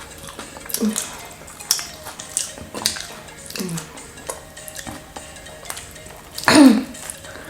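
Scattered light clicks and taps of dishes and cutlery being handled during a meal, with faint steady music underneath. A short vocal sound comes about six and a half seconds in.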